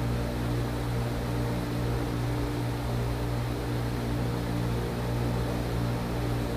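A steady low hum with a constant pitch under an even hiss, like a running machine or fan.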